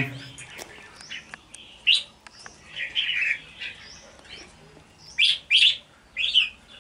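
Red-whiskered bulbuls calling from their cages: short high chirps and brief phrases scattered through, with several in quick succession in the last two seconds. A few faint clicks early on.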